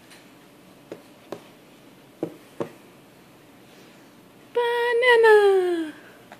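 A baby's voice: one long vocal sound about four and a half seconds in, held on one high pitch and then sliding down, made while eating from a spoon. Before it, a few soft clicks.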